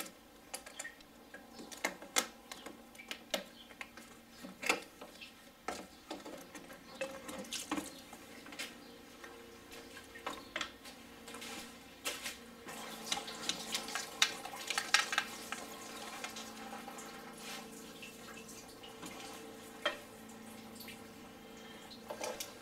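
Rubber coolant hoses being wiggled and pulled off a VW VR6 engine: scattered clicks and knocks of hose clamps, fittings and hands working among the hoses. A faint steady hum comes in about halfway through.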